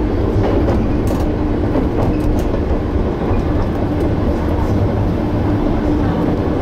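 Electric commuter train running along the line, heard from inside the car. A steady rumble of wheels on rail carries a steady hum, with a few light clicks here and there.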